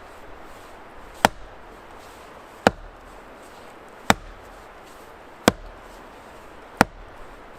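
Axe splitting a knotty log: five sharp wooden knocks evenly spaced, about one every second and a half, as the axe is driven down repeatedly into wood that the knot makes hard to split.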